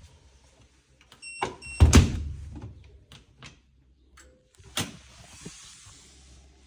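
Bosch washing machine being started: its control panel beeps twice, then the machine gives a loud clunk. Near the end a sharp click is followed by a steady hiss.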